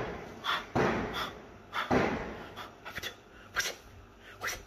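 A string of sudden, irregular noisy bangs, about half a dozen in a few seconds and each dying away quickly, the loudest about two seconds in. This is the noise that sounds like shooting.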